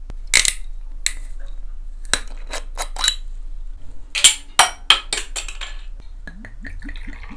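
Sharp clinks and knocks of a glass soju bottle against the glass and table, several in quick succession. Near the end, soju glugs from the bottle into a small shot glass, rising in pitch as the glass fills.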